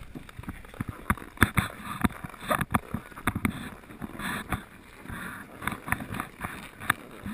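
Skis or snowboard sliding and scraping over packed snow on a descent, with a steady hiss. Frequent irregular knocks and clothing rubbing against the body-mounted camera run through it.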